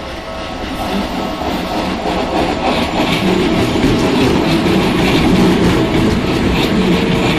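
Keikyu Line electric train passing close by at a level crossing, growing louder over the first few seconds and then holding, with repeated clacks of the wheels over the rail joints.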